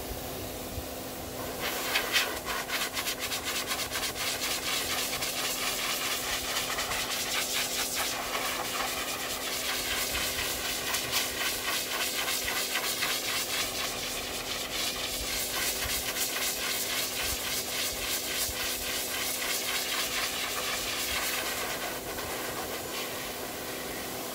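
High-velocity dog dryer running with a steady motor hum, blowing air over a Great Pyrenees' coat. About two seconds in, the air blast gets louder with a rapid flutter, and it eases back near the end.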